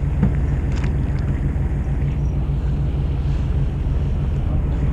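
Fishing boat's engine running steadily with a low hum, and a few faint clicks about a second in.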